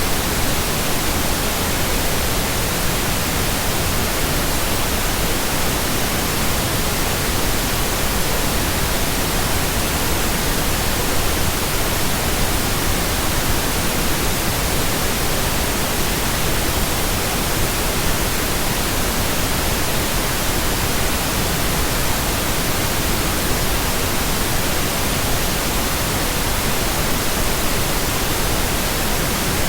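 Steady, unbroken pink noise: an even, generated hiss that holds the same level throughout.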